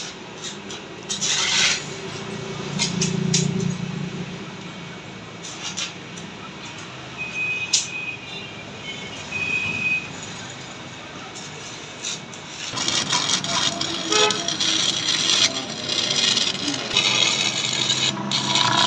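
Workshop machine and tool noise: scattered clicks and scraping, turning into a denser, louder clatter and rasping about two-thirds of the way through.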